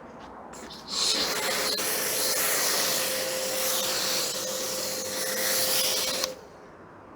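Kärcher K7 electric pressure washer spraying in one burst of about five seconds: the jet starts about a second in with a steady hiss and a faint whine, then cuts off abruptly when the trigger is released.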